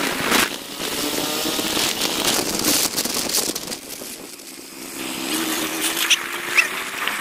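Bajaj Pulsar 220's single-cylinder engine running while the motorcycle is ridden, its pitch rising steadily over the last two seconds or so.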